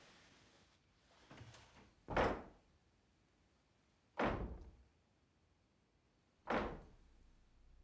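Wooden banging from a wardrobe: a soft double knock about a second and a half in, then three loud bangs about two seconds apart, each dying away quickly.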